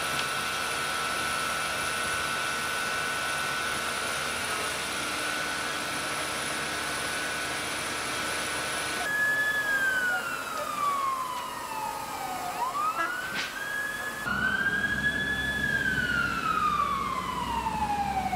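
Steady rushing noise with a constant high tone. Then an emergency vehicle's wail siren sweeps slowly down in pitch and back up, twice.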